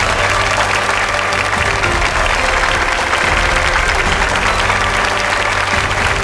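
Studio audience applauding steadily, a dense continuous clapping, over background music with held notes and a bass line.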